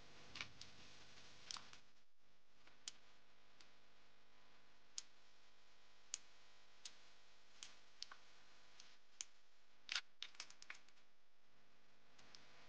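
Scattered sharp clicks and clinks of hand tools and metal parts being handled in a car's engine bay, irregular, with a quick run of several about ten seconds in.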